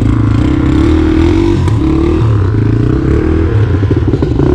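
Two-stroke dirt bike engine working hard under load through a difficult off-road section, its pitch rising and falling with the throttle and turning choppy near the end.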